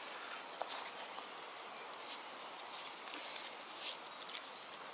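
Faint rustling and small crackles of elm bark strips being twisted by hand into cord, over a steady outdoor hiss.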